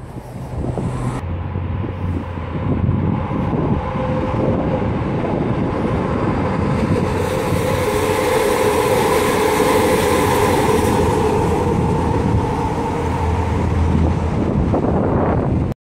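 Vancouver SkyTrain Expo Line train running along the elevated concrete guideway, a whine at two steady pitches over running noise. It grows louder to a peak about halfway through, then eases off.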